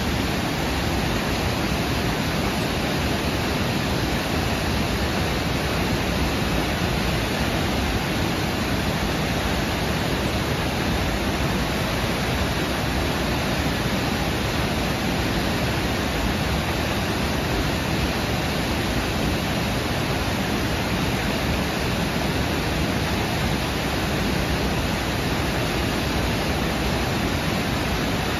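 Steady, loud rush of a whitewater rapid and waterfall pouring over rocks, an even roar of churning water with no let-up.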